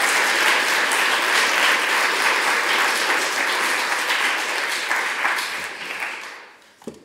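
Audience applauding, a dense steady clapping that dies away about six seconds in, followed by a single short knock just before the end.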